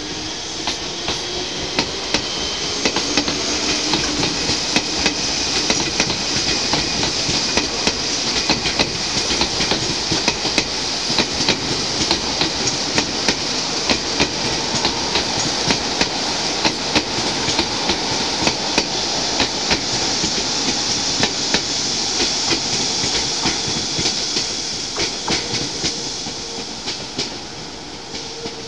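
Meitetsu electric train pulling out of the station, its wheels clacking over rail joints and points with a rising whine in the first few seconds. The sound fades as the train draws away near the end.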